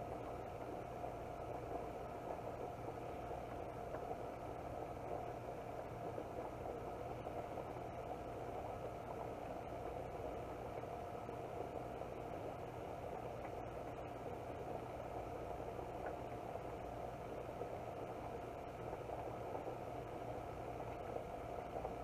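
Covered pot of basmati rice and water boiling steadily on a gas burner, a continuous bubbling noise under the glass lid while the water cooks down into the rice.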